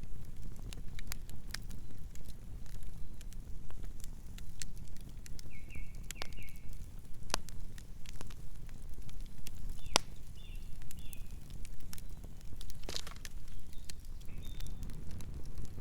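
Campfire crackling, with irregular sharp pops of the burning wood over a steady low rumble of the flames. A few faint, short, high chirps come twice, about six and eleven seconds in.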